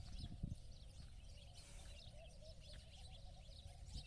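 Many small birds chirping faintly over a low steady rumble.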